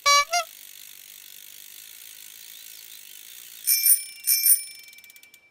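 Bicycle sounds: two short honks at the start, then a steady hiss of the bicycle rolling. A bell rings twice a little under four seconds in, with a lingering ring. Quick clicks of a coasting freewheel follow near the end.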